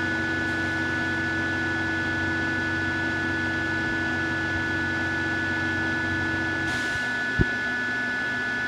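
Steady machine hum with a thin high whine over it. About seven seconds in, the lower part of the hum cuts out, followed by a brief hiss and a single click.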